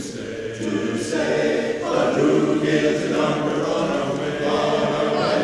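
Men's chorus singing a cappella, many voices holding chords together.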